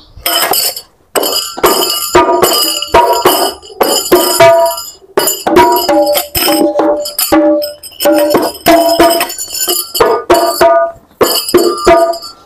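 Hadroh frame-drum music: rebana-type drums struck in a quick, steady rhythm, each strike ringing briefly, with a jingling tambourine-like edge.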